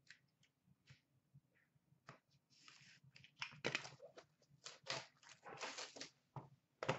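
Plastic shrink wrap and a cardboard card box being handled and opened: crinkling and rustling with scattered light taps. The first couple of seconds are nearly quiet, and the sound gets busier in the second half.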